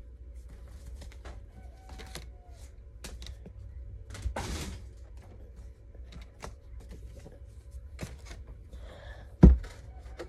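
Trading cards and their cardboard and plastic packaging being handled: scattered light taps and clicks, a short rustle about four and a half seconds in, and one loud thump about nine and a half seconds in.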